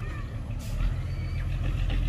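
Heavy diesel truck engine running with a steady low rumble that grows louder toward the end, with a click and a few short, thin high squeaks over it about a second in.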